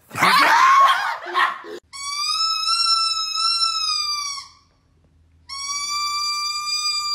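Two long squeals from a rubber squeeze toy, each a steady high-pitched tone held for about two seconds, with a short gap between them. Before them comes a loud, noisy burst lasting under two seconds.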